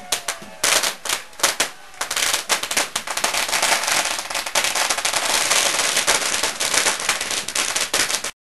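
A string of firecrackers going off: scattered bangs for the first two seconds, then a dense run of rapid pops that cuts off suddenly near the end.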